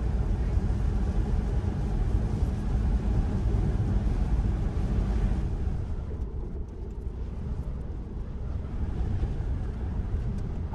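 Road and tyre noise heard inside a Tesla's cabin on a wet, rainy road: a steady low rumbling hiss. It softens about six seconds in as the car slows for a curve.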